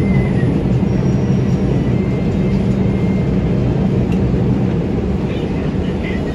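Running noise of an R142 subway car heard from inside: a steady rumble of wheels on elevated track and car body, with a faint high whine now and then.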